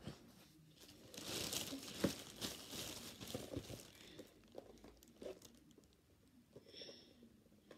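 Thin plastic carrier bag rustling and crinkling as boxed toys are pulled out of it, mostly in the first half, then fainter.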